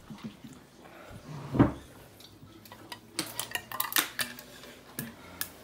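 Ice cubes clicking and rattling against a plastic cup as they are fished out by hand, a quick run of sharp clicks in the second half. A dull knock about a second and a half in is the loudest sound.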